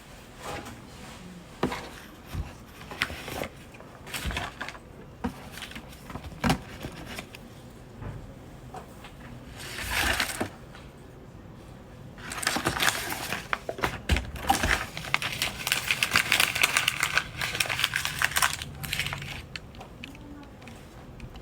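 Objects being handled: scattered clicks and knocks, then several seconds of dense crinkling and crackling, like plastic or paper packaging being handled.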